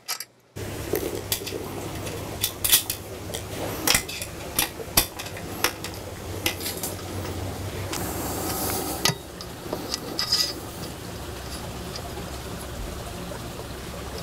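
Irregular small metallic clinks and taps of bolts and nuts being handled and fitted into a metal greenhouse frame post and base plate, over a steady low hum.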